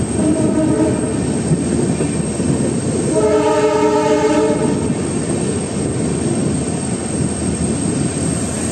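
Passenger train running along the track, heard from an open coach door with a steady rush of wheel and wind noise. The locomotive ahead sounds its horn twice: a short note about a second in, then a longer, louder blast around three to five seconds in.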